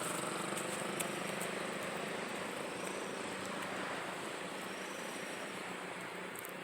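A distant engine running steadily and slowly fading away.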